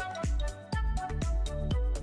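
Background electronic music with a steady kick-drum beat about twice a second under sustained synth notes. The music drops out briefly a little over half a second in.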